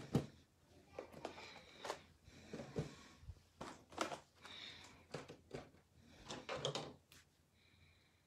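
An irregular series of light knocks and bumps, about a dozen over several seconds, like objects being handled.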